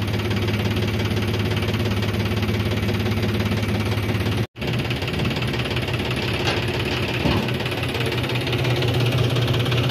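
Tractor engine running steadily while its hydraulics raise the tipping trolley's bed. There is a brief break in the sound near the middle.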